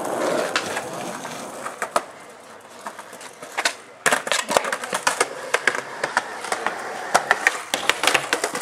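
Skateboard rolling on concrete, with a quieter stretch in the middle. From about four seconds in comes a dense run of sharp clacks and snaps from boards hitting the ground and the bench.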